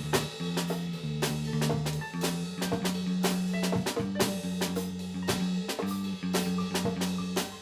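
Music: a drum kit playing a steady beat with snare and bass drum over held bass notes.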